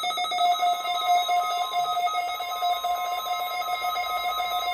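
NOAA Weather Radio receiver sounding its warning alarm for a test: a loud, steady electronic tone with a rapid buzzing flutter. A second steady tone joins about half a second in.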